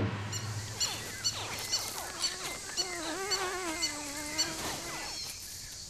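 Nile crocodile hatchlings calling from the nest: a run of short squeaky yelps that fall in pitch, with a longer wavering call in the middle.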